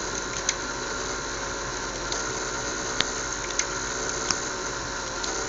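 Steady whirring hum of small fischertechnik electric motors spinning propellers, with about six sharp clicks scattered through it.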